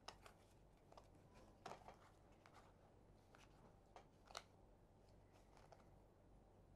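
Faint, scattered clicks and brief rustles of game cards being handled and sorted, over quiet room tone; the sharpest click comes about four and a half seconds in.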